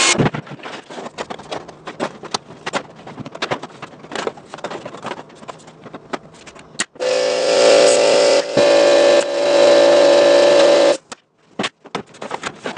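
Light clicks and taps of a thin plastic strip being handled and bent around a letter form. About seven seconds in, a power tool's motor runs steadily for roughly four seconds with a brief dip, then stops, and the tapping resumes.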